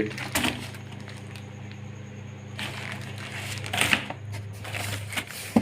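Light handling noises, rustling and a few clicks, as parts are handled, over a steady low hum.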